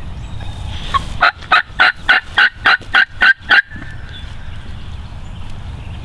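Turkey yelping: a series of about nine evenly spaced yelps, starting about a second in and lasting about two and a half seconds.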